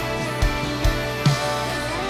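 Acoustic drum kit played along with a full-band worship song in its chorus: steady kick-drum beats a little over twice a second with a snare hit, over sustained guitars.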